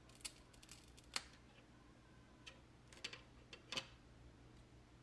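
A handful of small, sharp clicks and taps as tweezers and fingers work the iPod nano's thin metal and plastic internal parts, the loudest about a second in and a few more close together around three to four seconds in.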